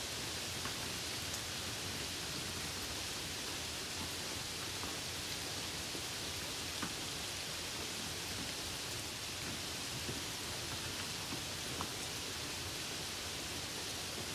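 Steady hiss of rain and wet road while driving, with a few faint single ticks of drops striking, once about seven seconds in and again near the end.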